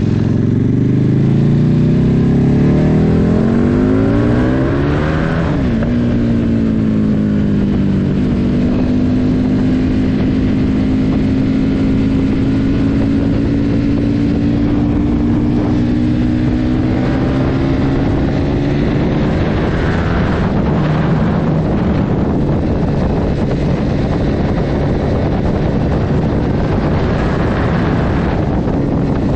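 KTM RC8R 1190 V-twin engine of a quad bike accelerating, its pitch rising for about five seconds, dropping with an upshift, then running steadily at motorway speed with a slow climb later on. Wind noise rushes over the microphone under the engine.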